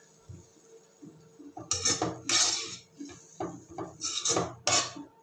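A steel spoon scrapes and knocks against a black wok while cooked vermicelli and vegetables are tossed and mixed. It comes in short, separate scrapes: two about two seconds in, a few soft knocks after them, and two more about four seconds in.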